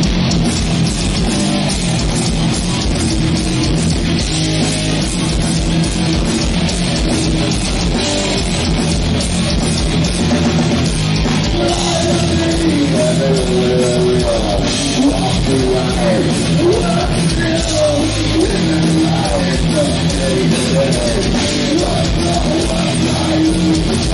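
Death metal band playing live at full volume: distorted electric guitars, bass and drums pounding steadily, with a wavering higher line coming in about halfway through.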